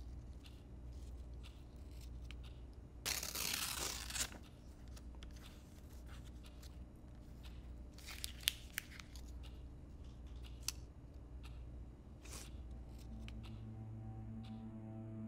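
Paper being torn and handled: one long rip about three seconds in, then a few short crisp snaps and clicks around eight seconds and again near twelve, over a low steady room hum.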